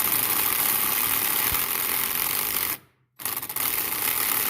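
DeWalt 12-volt 3/8-inch cordless impact wrench hammering on a seized bolt in two runs, with a short pause about three seconds in. The socket is twisting on the bolt head while the bolt itself does not turn.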